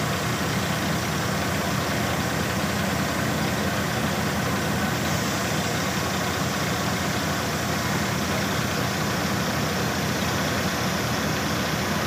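Surjeet paddy thresher running steadily, driven by a Massey Ferguson 1035 DI three-cylinder diesel tractor, as rice straw is fed into it. The engine's low drone lies under the constant noise of the threshing drum.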